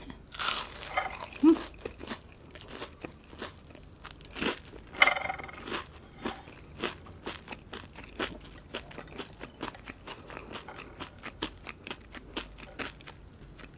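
Crunching and chewing of fried breaded shrimp, close to the microphone: a loud crunchy bite right at the start, then a long run of irregular crisp chewing crunches.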